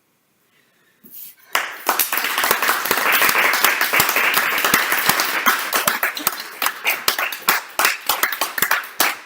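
Applause that starts abruptly about a second and a half in, many hands clapping densely, then thinning into more separate claps near the end.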